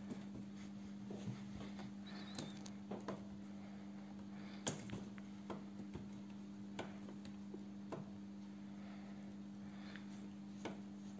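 Scattered light taps and clicks of a Siamese cat's paws striking a laptop's screen and keyboard, irregular, with the sharpest tap about halfway through. A steady low hum runs underneath.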